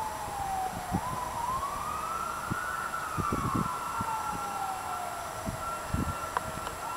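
A distant fire truck siren wailing in slow rising and falling sweeps, with occasional low thumps close to the microphone.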